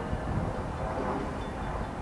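Low rumble of a distant approaching diesel freight locomotive, mixed with wind on the microphone.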